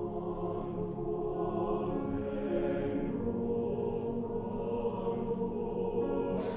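Chamber choir singing slow, sustained chords in several parts, swelling louder over the first couple of seconds. Near the end the voices land together on a sharp sibilant 's'.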